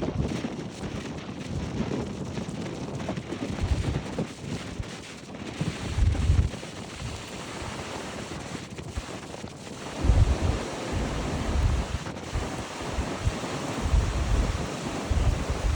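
Rough sea surf breaking and rushing in a strong wind. Gusts buffet the microphone in low rumbles, hardest about six, ten and fourteen seconds in.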